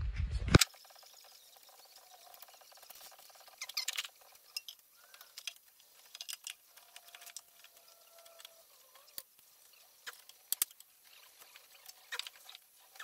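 Light, scattered clicks and rattles of hands handling small parts on a Yamaha Blaster ATV's engine, with a denser cluster about four seconds in and a few sharp ticks later on.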